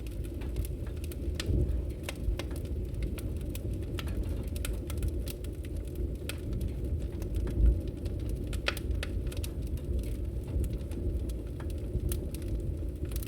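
Fire burning in a fireplace: a steady low rumble of flames with frequent sharp crackles and pops scattered throughout.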